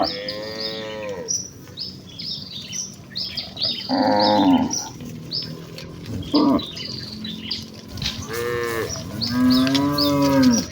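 Several cattle mooing in turn, about five calls, the longest and deepest near the end, over birds chirping steadily.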